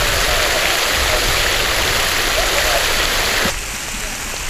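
Steady splashing of a water fountain, with faint voices underneath. About three and a half seconds in, the splashing cuts off abruptly to quieter outdoor sound.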